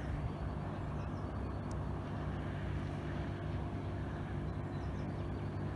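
An engine running steadily: a low, even hum over a background of noise.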